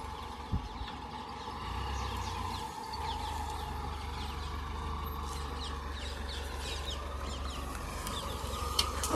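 Car engine idling steadily while birds give repeated short, falling chirps. A single sharp knock comes about half a second in, and another near the end.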